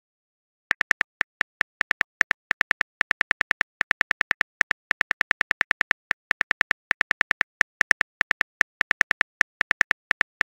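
Simulated phone-keyboard typing clicks from a texting-story app as a message is typed out: short, even taps at about six a second, starting after a brief moment of dead silence.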